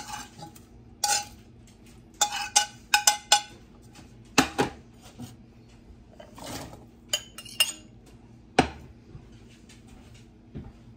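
A utensil clinks and scrapes against a plate and the rim of a stainless steel pot as cut-up chicken and vegetables are scraped in. The sharp clinks come irregularly, bunched in the first half, and die away after about nine seconds.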